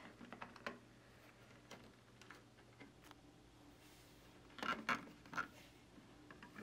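Plastic building bricks being handled: scattered soft clicks and taps of fingers and clear plastic panels, with a few louder sharp clicks a little past halfway.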